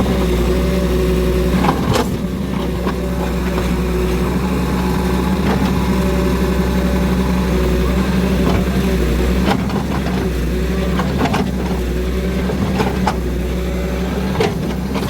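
An engine running steadily at a constant speed, with scattered knocks and clicks over it.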